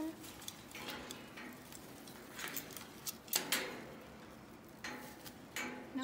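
Macaw clambering on a metal cage, its beak and claws clicking and knocking against the bars in irregular taps, with a few sharper knocks about halfway through. She is reaching beak-first to steady herself, as this macaw does because of a left foot defect.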